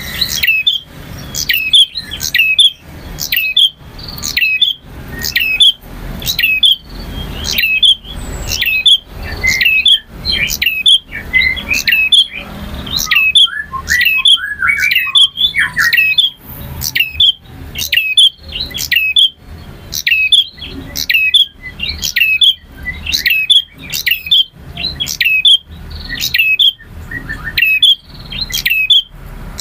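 Male prenjak (prinia) singing loudly: sharp, quick chirps repeated about twice a second, with a faster, more varied warbling run about halfway through.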